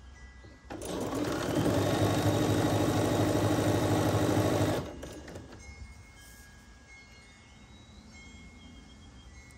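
Computerised sewing machine stitching a seam through pieced quilt fabric. The motor speeds up a little under a second in, runs steadily for about four seconds, then stops.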